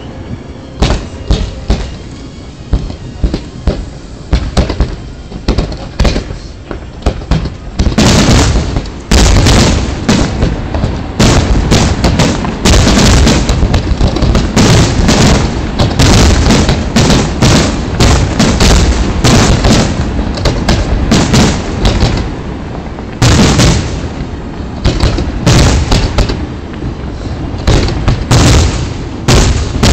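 Aerial fireworks display: shell bursts banging one after another over a continuous rumble and crackle. It grows into a dense, near-continuous volley about eight seconds in.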